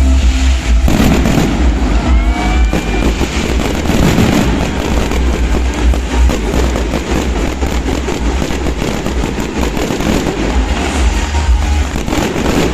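Fireworks display: a dense, continuous barrage of bangs and crackles over a heavy low rumble, with a short whistling glide about two seconds in.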